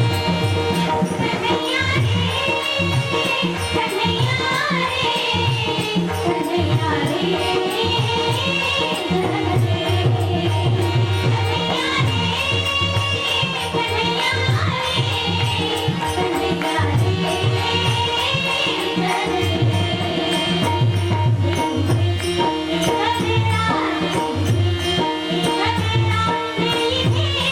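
A girl singing an Indian song with long, ornamented notes over a steady held drone, with tabla playing a regular beat underneath.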